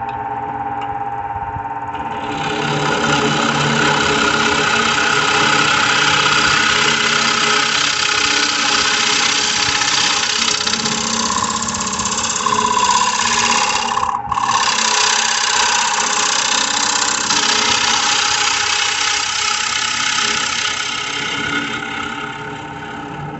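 Wood lathe running with a steady motor hum while a bowl scraper cuts the inside of a spinning spalted birch bowl. The loud hiss of cutting starts about two seconds in, breaks off for a moment about halfway, and eases near the end.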